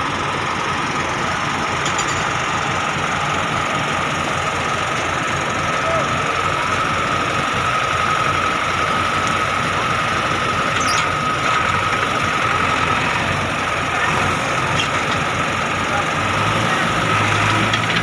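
Diesel engine of a JCB 3DX backhoe loader running steadily, with a steady high whine over it. Near the end a low steady hum comes in under the engine.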